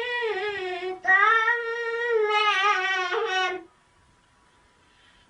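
A child reciting the Quran in a high, melodic chant: a short phrase, then a longer drawn-out phrase that breaks off about two-thirds of the way in, followed by a pause.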